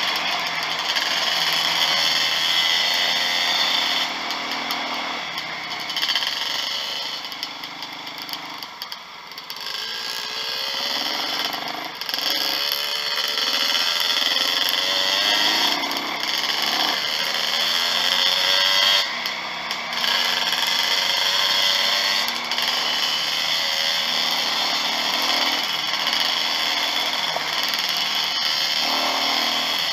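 Dirt bike engine heard close up while riding, revving up and down with the throttle. It eases off for a couple of seconds around nine seconds in, then picks up again.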